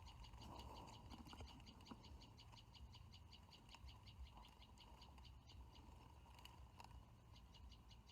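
Faint animal chorus: a high call pulsing rapidly and evenly, several pulses a second, over a steady lower tone.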